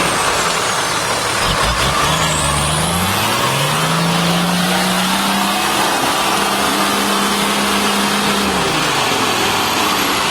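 Nissan Patrol 4x4's engine pulling under load through mud: the revs climb a few seconds in, hold high for several seconds, then drop back near the end, over a constant noisy rush of tyres and mud.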